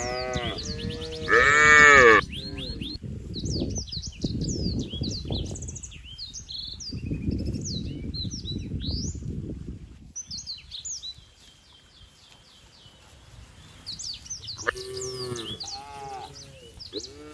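Cattle mooing: a loud, high-pitched moo about a second and a half in, then more moos near the end. Small birds chirp throughout, and a low rustling noise fills the first ten seconds.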